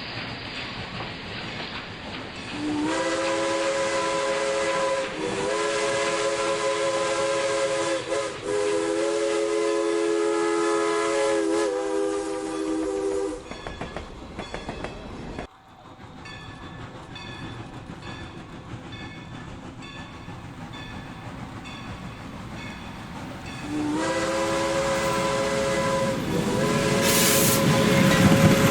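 Steam locomotive sound effects: a multi-note chime whistle blown in a long series of blasts with short breaks. It is followed by quieter steady rhythmic chuffing, then another long whistle blast near the end.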